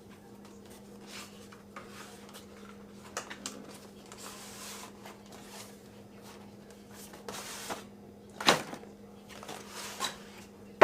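Graphics card box being opened and its packaging handled: scattered light clicks and cardboard and plastic rustling, with a sharper knock about eight seconds in, over a steady low hum.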